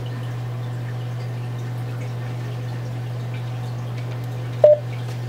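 A steady low hum, and about four and a half seconds in one short electronic beep from a Cisco IP video phone as a button is pressed to put the call on hold.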